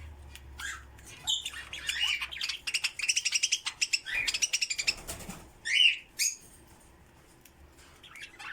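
Flock of small pet birds in an aviary chirping and chattering, with rapid trains of ticking notes in the first few seconds and two loud sharp calls about six seconds in, then fainter calls near the end.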